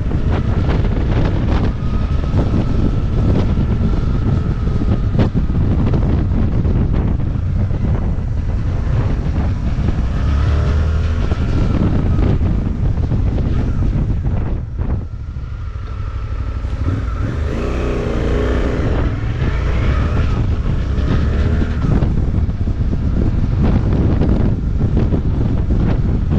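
Suzuki motorcycle engine heard on the move, with wind buffeting the microphone. The engine pitch rises and falls twice as it pulls through the revs, and the sound eases off briefly about halfway through.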